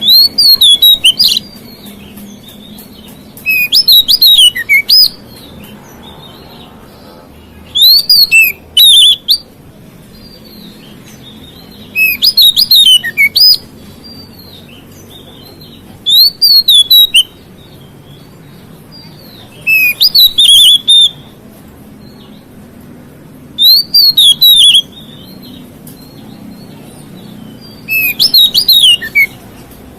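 Oriental magpie-robin (kacer) singing a loud burst of quick, rapidly rising and falling whistled notes about every four seconds, eight times. It is a challenging song meant to provoke rival magpie-robins.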